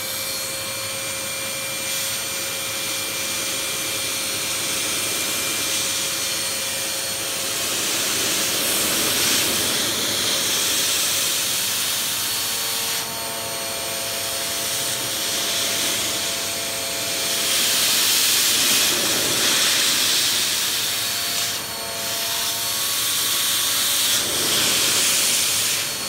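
Vax Power Pet bagless upright vacuum cleaner running, drawing air through its hose and a brush-tipped hand tool worked over sofa upholstery: a steady rushing hiss with a motor whine. The rush swells and eases a few times as the nozzle presses onto and lifts off the fabric.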